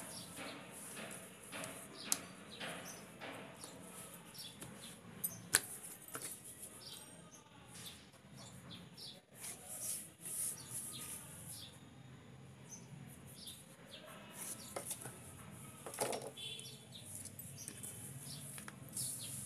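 Hands handling thin sheets of rolled dough, peeling them apart and laying them down on a smooth table: soft rustling and light slaps with scattered swishes. A couple of sharp clicks stand out, about two seconds in and again about five and a half seconds in.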